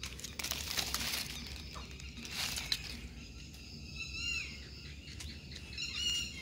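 Wet pandan leaves rustling in short bursts as they are brushed, with a bird giving two brief calls, about four and six seconds in.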